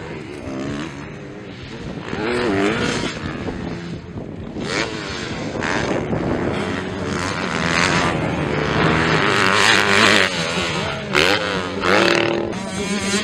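Motocross dirt bikes racing past, engines revving up and falling back repeatedly as the riders work the throttle and gears, louder from a couple of seconds in.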